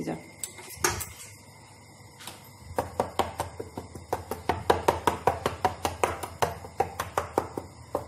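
A metal fork docking a rolled pizza dough base in a steel plate, the tines jabbing through the dough and clicking on the plate, about four quick clicks a second from a few seconds in, after a couple of single taps near the start. The holes keep the base from puffing up as it bakes.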